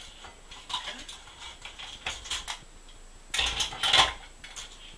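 Clicking and clattering close to the microphone, in three bunches, the loudest about three and a half to four seconds in.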